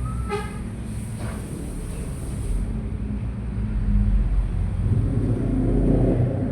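A low, steady rumble, with a brief high-pitched squeal just under half a second in; low sustained tones swell in over the second half.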